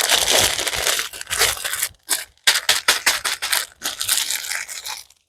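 Plastic packaging crinkling and crackling as it is handled, in a run of rustles with two short pauses.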